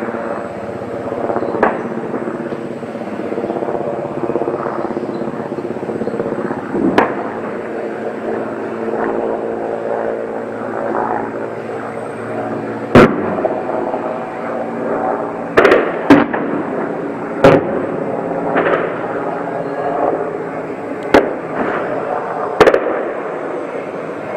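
Mil Mi-8-family military helicopter flying overhead, its rotor and turbines making a steady drone. About ten single gunshots crack at irregular intervals over it, most of them in the second half.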